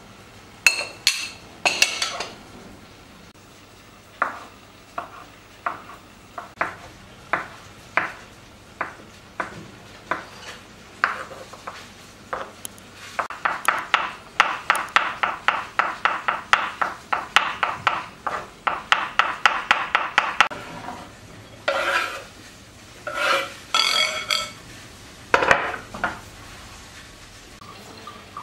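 Kitchen knife chopping boiled egg whites on a wooden cutting board. It starts with slow single cuts, then about seven seconds of rapid chopping at roughly four strokes a second, then a few louder knocks near the end. There are a couple of ringing knocks at the very start.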